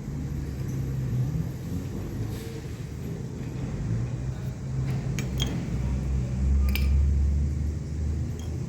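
A few light metallic clinks of tools and brake parts being handled, three close together between about five and seven seconds in, over a low steady rumble.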